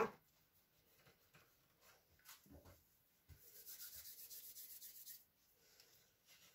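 Hands rubbing and handling a log of almond and peanut paste on a buttered filo sheet. A brief knock comes at the very start and a soft bump about two and a half seconds in, then about two seconds of steady dry rubbing from a little past three seconds.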